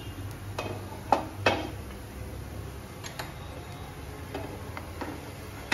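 A handful of sharp clinks and knocks of utensils on a non-stick frying pan, a wooden spatula working under the edge of a cooking chilla, the two loudest a little over a second in, over a low steady hum.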